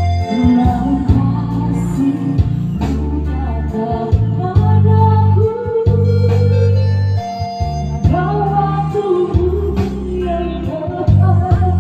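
A worship song sung solo over electronic organ accompaniment: a wavering sung melody above long held bass chords. The singing is slightly off-key, which the singer puts down to a cough.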